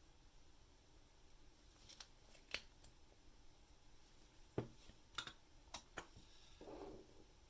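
Faint, sharp clicks of small metal watchmaking tools against tiny watch-movement parts, about seven scattered ticks, with a short soft rustle near the end.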